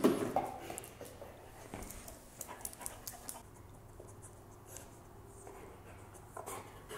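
Golden retriever nosing and pawing a plastic sliding dog toy on carpet: faint scuffs and light clicks with soft dog breathing.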